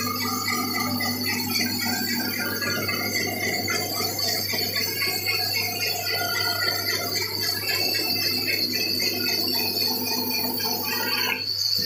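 Large vertical band saw running and cutting a wooden plank: a steady motor hum under a high metallic ringing squeal from the blade. The lower cutting noise drops away near the end.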